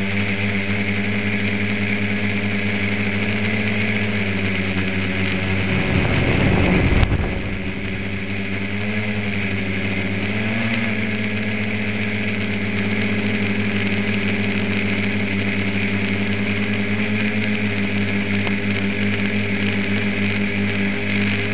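Tricopter's three electric motors and propellers running with a steady hum of several tones that drift slightly in pitch as the throttle changes, heard from the camera mounted on the craft. About seven seconds in, a brief louder rush of air ends in a sharp click.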